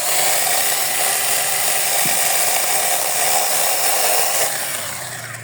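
Small chainsaw running steadily under power, its level easing off near the end.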